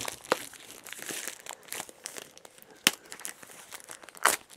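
Thin plastic shrink-wrap crinkling as it is pulled off a mediabook, with sharp crackles about three times.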